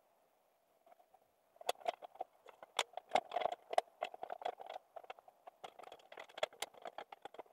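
White oak boards set down into metal panel clamps and the clamps shifted and tightened: a run of irregular wooden knocks, metal clicks and rattles starting a couple of seconds in, over a faint steady hum.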